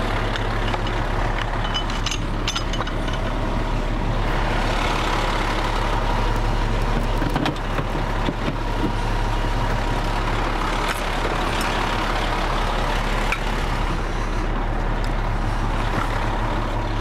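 Fire engine's diesel engine running steadily, with a few short metallic clinks from hose couplings and the clamp being handled.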